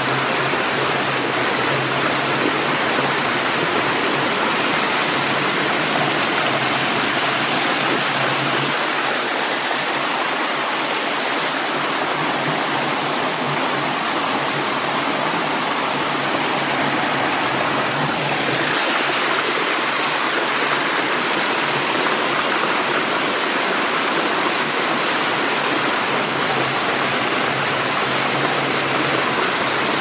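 Small waterfall spilling over rock into a rocky stream: a steady rush of falling and splashing water.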